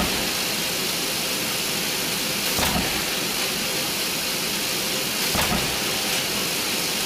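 Roll-forming machine line running: a steady hissing machine noise with a dull thump repeating about every two and a half to three seconds, three times.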